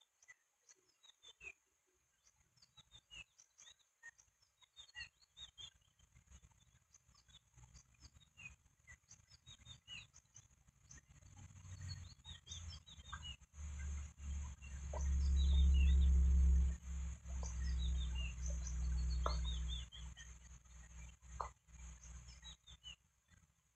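Short high bird chirps scattered throughout over a steady hiss, with a low rumble of wind on the microphone that builds about halfway through and is loudest for a few seconds before fading.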